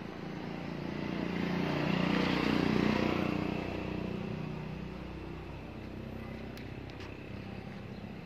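Electric motors and blower of an ACM pulverizer mill running with a steady hum that grows louder about two seconds in, peaks around three seconds, then eases back.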